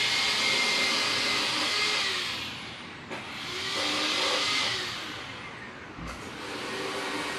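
Two vehicles passing one after the other, each a rising and falling rush of tyre and road noise lasting about three seconds; the second fades out near the end.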